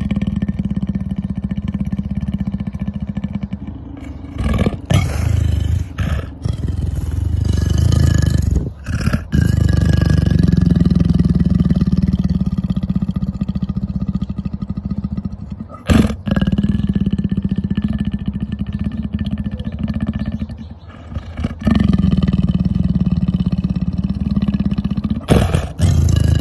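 Leopard growling: a low, steady, pulsing rumble in long stretches, broken by brief pauses several times.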